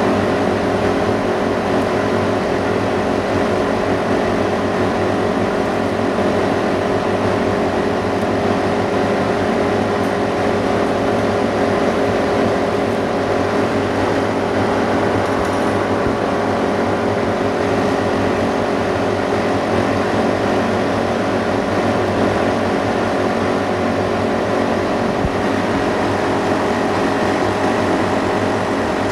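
Steady electric hum of an OCA film laminating machine's built-in vacuum pump, which is running to hold the LCD on the platform. It is even throughout, with several held low tones.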